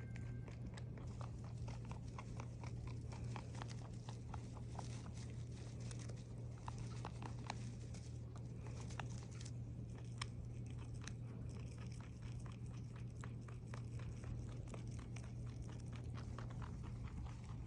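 A pet chewing crunchy food, with rapid, irregular crunches throughout and a steady low hum underneath.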